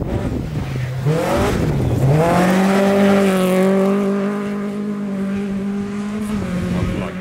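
Rally car engine at full throttle on a gravel stage: the revs climb, dip briefly at a gear change, climb again and hold high and steady, then fall off near the end.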